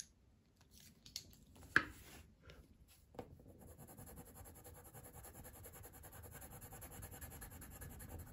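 A white pencil shading on hot-press watercolour paper in rapid, steady strokes, starting about three seconds in. Before it come a few light clicks and one sharper tap.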